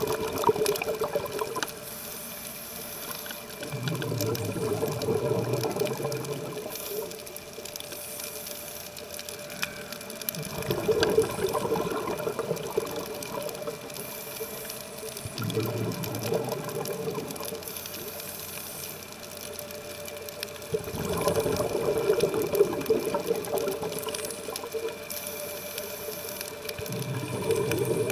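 A scuba diver breathing through a regulator underwater: a rushing hiss of inhalation alternates with a low bubbling rumble of exhaled air, one full breath about every ten seconds, over a faint steady hum.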